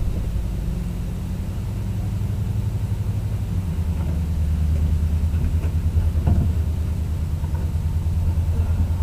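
Low, steady rumble of an idling engine, with a single faint knock about six seconds in.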